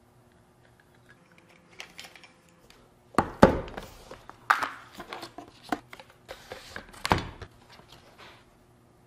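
Hands handling a chef knife, its sheath and a cardboard presentation box on a wooden cutting board. Faint clicks at first, then a sharp thunk about three seconds in, followed by several more knocks and a brief rustle as the box and knife are set down and packed.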